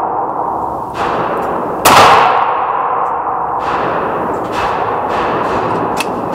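A single .308 rifle shot about two seconds in, its report ringing on in a long echo off the walls of an indoor range. A softer knock comes about a second in, and faint clicks follow later.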